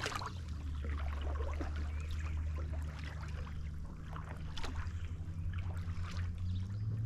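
Small water splashes and drips next to a kayak as a hooked bass is worked in, with short clicks, over a steady low hum that rises slightly near the end.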